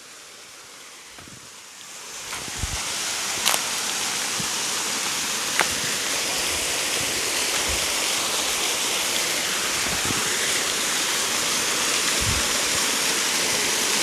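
Waterfall rushing over rocks: a steady noise that swells about two seconds in and then holds, with a couple of faint clicks over it.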